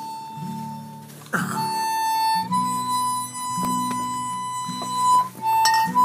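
Harmonica playing a slow tune of long held notes over acoustic guitar chords. The harmonica steps up to a higher note about two and a half seconds in and holds it, then plays a few short notes near the end.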